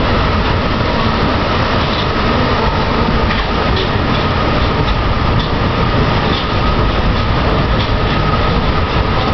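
Rubber-tyred Paris Metro line 6 train running between stations, heard from inside the car. It is a steady loud rumble with a constant high whine over it.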